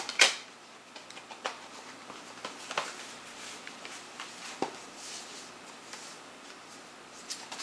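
A CD and its cardboard digipak being handled: a sharp click just after the start, then scattered small clicks, taps and soft rustling.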